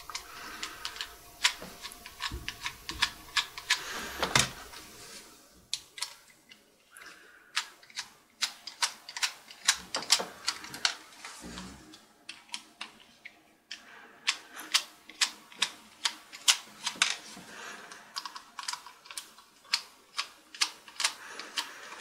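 Rapid, irregular sharp clicks and taps of a small screwdriver working the screws of a plastic 2.5-inch drive caddy, with the caddy being handled.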